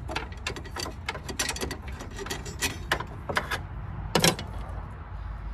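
Irregular clicks and taps of a universal battery clamp being handled and tried in place against the battery, with one louder knock about four seconds in.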